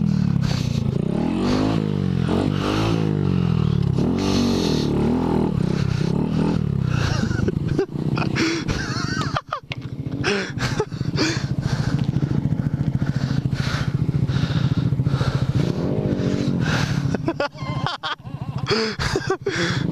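Off-road motorcycle engine revving up and down repeatedly as the bike climbs and drops through a rough trail, then pulling more steadily, with knocks and rattles from the bumpy ground; the throttle falls off briefly twice, once about halfway through and again near the end.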